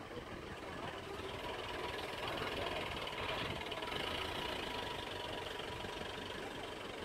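A vehicle's engine idling steadily, a low rumble that grows a little louder about a second in.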